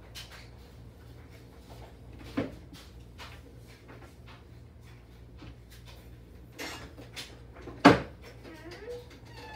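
Rummaging in a low kitchen cabinet: a few scattered knocks and clatters of things being moved, the loudest about eight seconds in, over a low steady hum.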